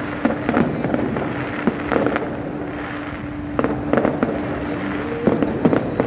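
Aerial fireworks going off: irregular bangs and crackles of bursting shells, several close together, over a steady tone that runs underneath.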